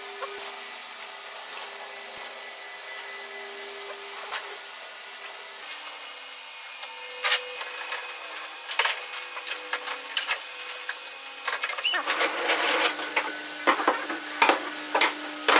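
Thin wooden strips clicking and knocking against one another as they are handled and pressed together for gluing and clamping: a few sharp clicks at first, then a quick run of them over the last few seconds. Under them is a steady low background of held tones that shift every few seconds.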